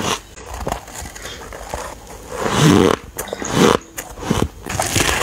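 Biting and chewing a chunk of soft white ice: crisp, uneven crunching, with the loudest bites about two and a half and three and a half seconds in.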